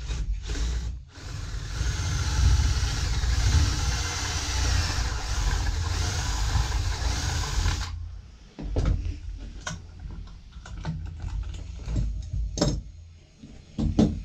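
Cordless drill boring a pocket hole through a pocket-hole jig into a pine board, running for about seven seconds with its whine wavering under load. It then stops and is followed by a series of knocks and clatter from the jig and board being handled.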